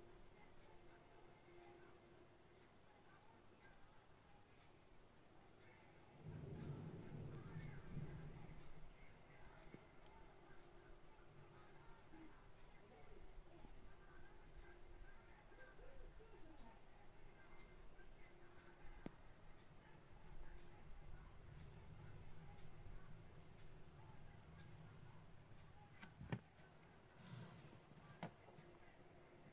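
Faint crickets chirping: a steady, even run of high chirps throughout, over a low hum that comes in about six seconds in.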